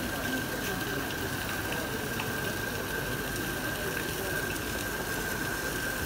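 Kinetic sculpture fountain running, its jets of water splashing steadily into the pool, with a steady high tone and a few faint ticks from the mechanism.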